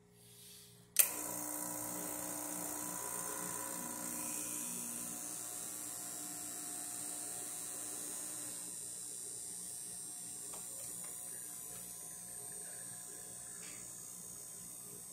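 Gaggia Classic Evo Pro's vibratory pump switched on with a sharp click about a second in, then buzzing steadily as it pushes water through the group head to pull an espresso shot.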